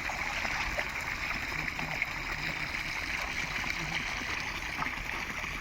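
Water rushing and splashing steadily, an even unbroken flow like a stream or a pipe pouring into a pond.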